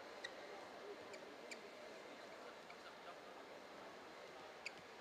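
Faint murmur of a badminton arena crowd between rallies, with a handful of brief high squeaks.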